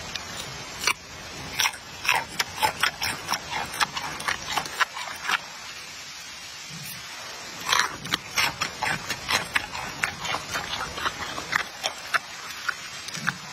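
A giant panda chewing food, an irregular run of wet crunching and smacking clicks, with a short lull near the middle.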